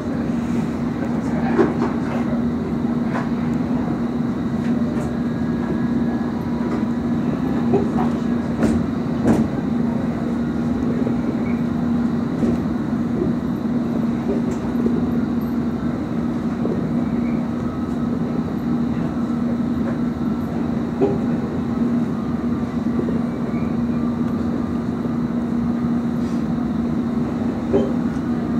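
London Underground S7 Stock train running, heard from inside the carriage: a steady low hum and rumble with occasional short clicks and knocks from the running gear.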